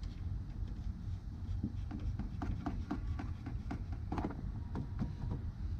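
Plastic windshield cowl panel being pressed and worked into place by hand: a run of small irregular clicks and plastic rubbing as it seats along the base of the windshield.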